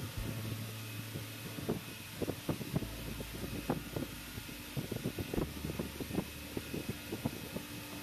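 Old electric bench grinder running with a steady low hum, with irregular light clicks and taps of small aluminium moka pot parts being handled on the bench.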